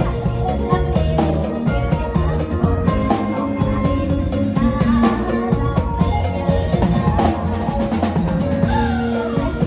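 Isan-style band music: an electronic keyboard plays a melody with a few sliding pitch-bent notes near the end, over a drum kit beat.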